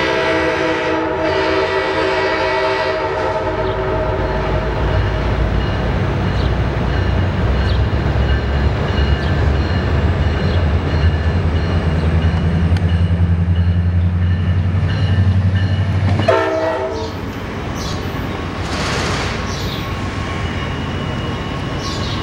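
A VRE commuter train's diesel locomotive, an MP36PH-3C, sounds a multi-note chord horn for about four seconds as it approaches. Its engine rumble then builds as it nears, and a second short horn blast comes about sixteen seconds in. After that the sound drops to a quieter, steady train rumble.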